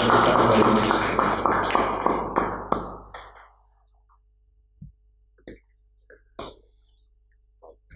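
Audience clapping that dies away about three seconds in, followed by a few faint scattered knocks.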